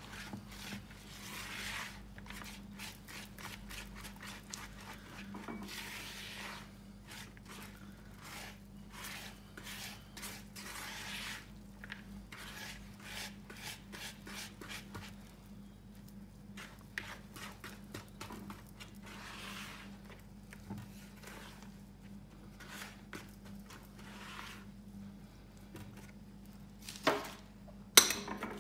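Hand mixing and squeezing soft cookie dough in a plastic bowl: irregular rubbing and scraping of the dough against the bowl, over a faint steady hum. A few sharper knocks near the end.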